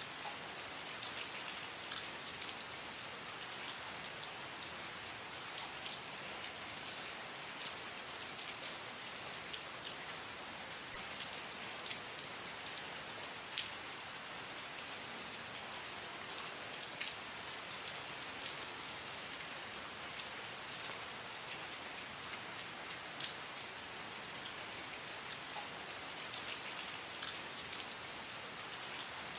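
Steady rain falling on a surface, with a dense hiss and many separate drops ticking through it.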